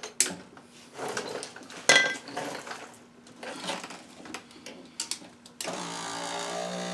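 Light clicks and handling of small plastic and metal parts, then about five and a half seconds in a power window motor starts up with a steady whir, driving the window regulator's toothed tape through its track.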